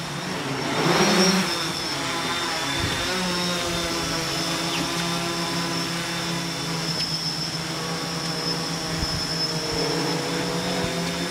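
DJI F550 hexacopter's six E305 brushless motors and propellers humming steadily while it hovers, with a faint high whine over the hum. About a second in there is a brief, louder rush of noise.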